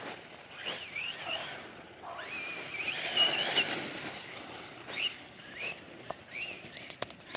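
Traxxas Rustler VXL RC truck's brushless motor whining in several bursts, its pitch rising and falling as the throttle is worked, loudest and longest about three seconds in.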